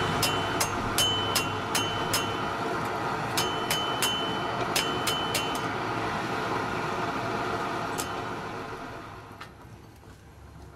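Hand hammer striking a red-hot steel bar on an anvil, each blow ringing, about two or three a second, stopping about five and a half seconds in, with one last strike near eight seconds. Underneath is the steady roar of the propane venturi burners of the gas forge, which fades away near the end.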